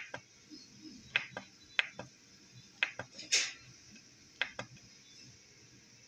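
Small rotary encoder knob on an Arduino module clicking as a finger works it to step through a settings menu: about ten sharp, light clicks, mostly in close pairs, spread over the first five seconds.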